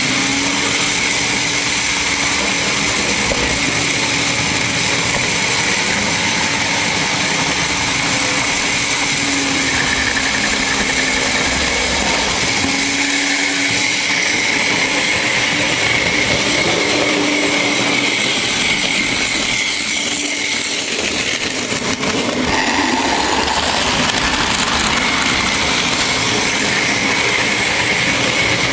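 Märklin model train running on the layout's track: a steady mechanical hum and rumble with a thin high whine over it and a lower tone that comes and goes. It grows briefly fainter about twenty seconds in.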